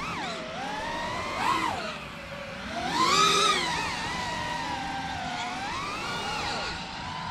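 FPV freestyle quadcopter's brushless motors and propellers whining, the pitch swinging up and down with the throttle, with a louder punch of throttle about three seconds in.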